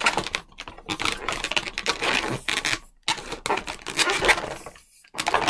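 Long latex modelling balloon being twisted and worked by hand, a quick run of rubs and squeaks from the latex. The run breaks briefly about three seconds in and again near the end.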